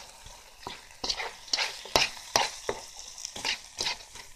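Chicken, onions and peppers being stirred in a hot pan: a utensil scrapes and knocks against the pan in quick, irregular strokes over a faint sizzle.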